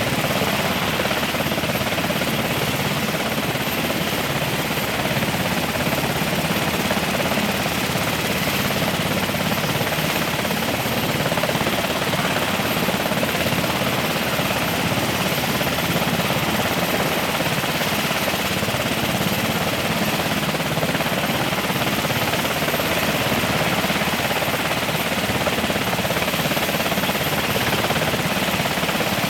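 Military helicopter running on the ground or lifting off, its turbine engines and rotor making a steady, unbroken noise.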